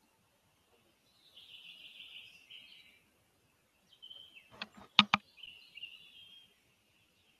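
High chirping calls of a spotted eagle chick in the nest, in a run of about a second and a half and again near the end. Three or four sharp clicks come about five seconds in, the loudest of them just after.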